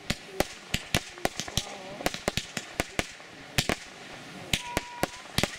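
Fireworks display: a rapid, irregular run of sharp bangs and pops from shells and crackling stars bursting overhead, about twenty in five seconds.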